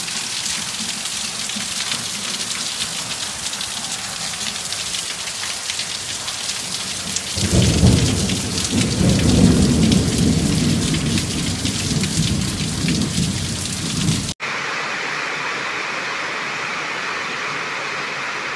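Heavy rain hissing steadily. A long, deep rumble of thunder starts about halfway through and lasts several seconds, and it is the loudest sound. Near the end the sound cuts abruptly to a different, steadier hiss of rain.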